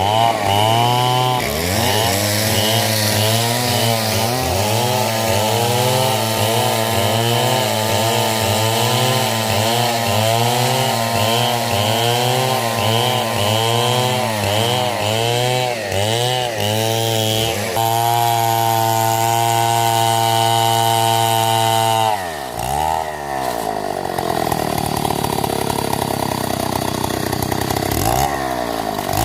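Stihl chainsaw cutting into hardwood coconut palm, its engine pitch dipping and recovering under load. About two-thirds of the way through it holds a steady high pitch for a few seconds, then drops suddenly and runs lower and unsteady, rising again near the end.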